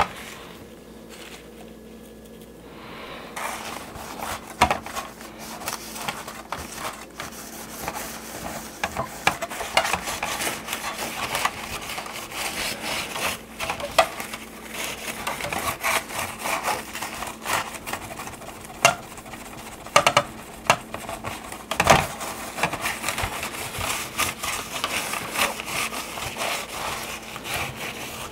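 Cloth rubbing back and forth over the plastic body of a 1983 GI Joe Skystriker toy jet, wiping in baby oil to restore the plastic, starting a few seconds in. A few sharp knocks of the plastic being handled stand out, the loudest near the end.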